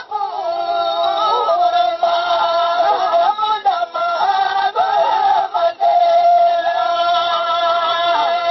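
A voice singing a Sindhi molood (devotional kafi) melody in long held notes with wavering ornaments, breaking off briefly a few times for breath.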